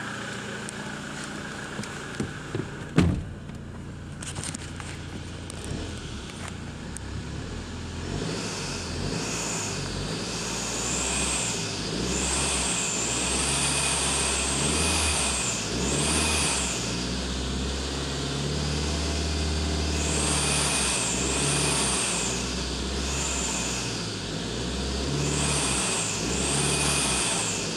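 Toyota Hilux 2.8-litre turbo-diesel engine running with a check-engine fault in reduced-power mode. From about eight seconds in it is revved again and again, a high whistle rising and falling with each rev. A single loud thump comes near three seconds.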